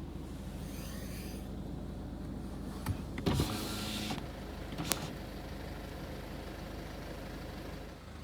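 Sprinter van's engine running at idle, heard as a steady low hum inside the cab, with a short rustling noise about three seconds in and a sharp click near five seconds.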